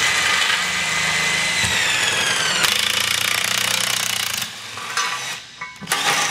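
Air impact wrench hammering steadily as it turns a truck tire demounter, working the tire bead off the rim. Its pitch falls about two seconds in, it runs quieter past four seconds, then it stops briefly and starts again near the end.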